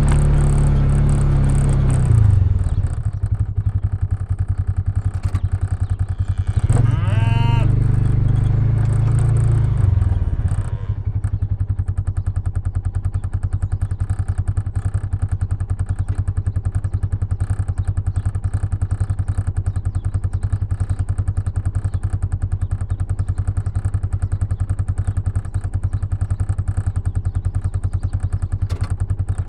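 An engine running steadily throughout, with cattle mooing: one long low moo that ends about two seconds in, and another from about seven to ten seconds in.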